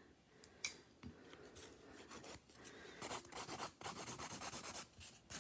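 Hand nail file rasping across a gel-coated fingernail in back-and-forth strokes. They start faintly about a second and a half in and settle into a steady rhythm of about four strokes a second.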